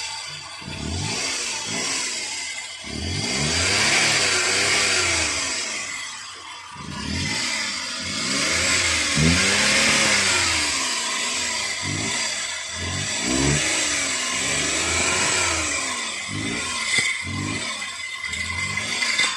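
Suzuki K6A three-cylinder engine of a DA63T multicab running and being revved up and down over and over, uneven at first, then in repeated rising and falling sweeps. It is being tested for its reported hard starting and misfire.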